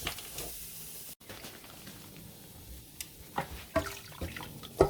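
Water splashing in a kitchen for about a second, stopping abruptly, followed by a few light clicks and knocks.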